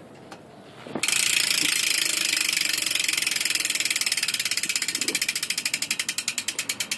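BMX rear hub's freewheel pawls ratcheting loudly as the rear wheel spins freely. The clicking starts suddenly about a second in, very fast, and slows into distinct separate clicks as the wheel runs down.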